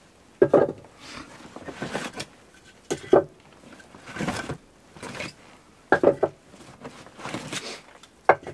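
Rummaging through a backpack: fabric rustling and gear being moved about, with several sharp knocks and clinks of items inside.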